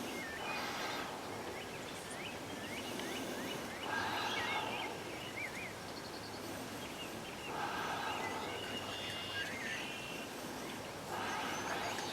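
Wild turkey gobbling four times, about every three and a half seconds, with small birds chirping between the gobbles.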